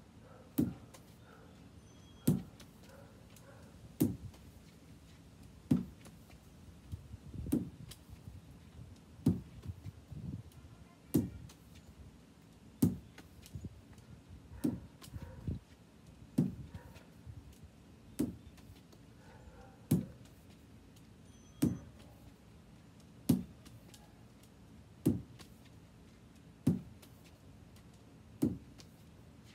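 A lacrosse ball being tossed and caught in the head of a lacrosse stick over and over: a sharp knock about every second and three-quarters, each with a short rattle after it.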